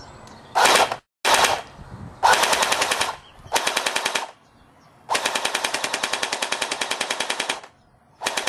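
A P90-style BB gun firing on full auto in six bursts of rapid shots at about fourteen a second. The bursts are mostly short, and the longest lasts about two and a half seconds, about halfway through.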